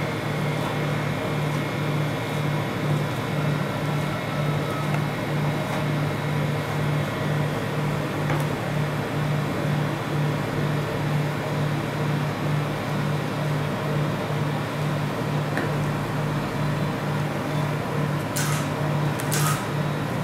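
Steady hum of an ice cream roll machine's refrigerated cold plate, pulsing low about two to three times a second. A metal spatula scrapes or taps sharply on the steel plate twice near the end.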